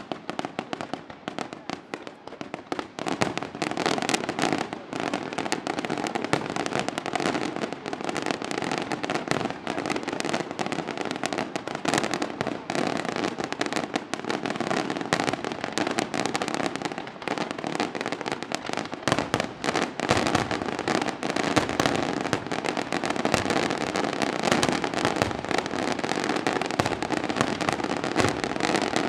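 Aerial fireworks shells bursting in a dense, continuous barrage of bangs and crackles. The barrage thickens a few seconds in and grows denser and louder over the second half.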